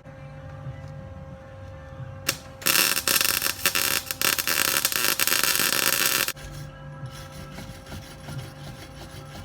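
Electric arc welder running a weld on steel: a loud crackling hiss that starts a few seconds in, after a short click, and cuts off abruptly about three and a half seconds later. A low steady hum sounds before and after it.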